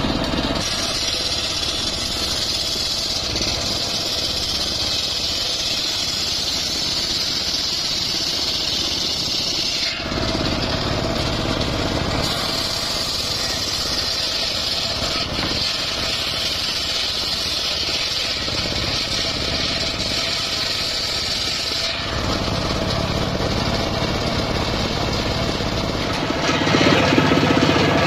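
A homemade engine-driven circular sawbench running steadily while its blade rips teak boards. There are two long cuts of about ten seconds each, with the blade spinning free between them. Near the end the sound turns louder and lower.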